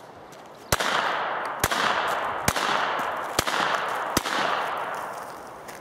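Five shots from a North American Arms mini revolver in .22 Long Rifle, fired about one a second, each sharp crack followed by a long echo that fades off.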